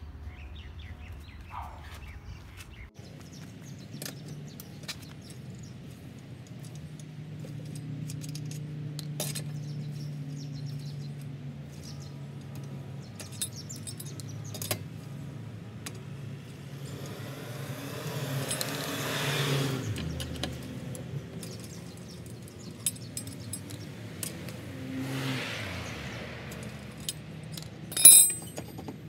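Wheel brace undoing a car's lug nuts: scattered small metallic clicks and clinks, with one loud, sharp, ringing metal clink near the end.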